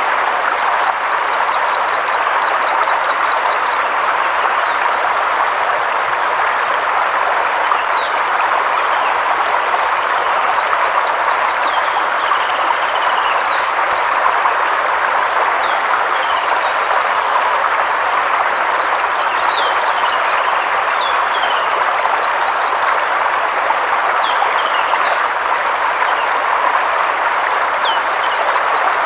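Forest river water rushing steadily, with birds calling over it: bursts of quick, high trilled notes and short falling chirps that repeat every few seconds.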